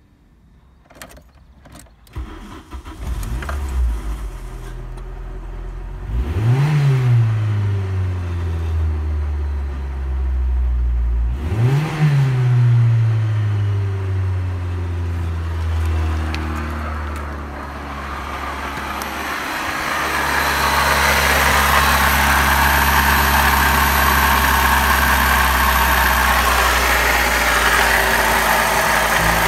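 VW Passat B3 2.0 litre 2E petrol engine starting after a few clicks, then revved briefly twice, each time falling back to a steady idle. In the last third the idle is heard close under the open bonnet, louder and with more high mechanical noise.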